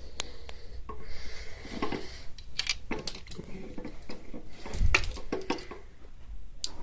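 Handling noise: scattered clicks, light knocks and rustling as a hanging animated Halloween prop is touched and moved about, with a heavier bump about five seconds in.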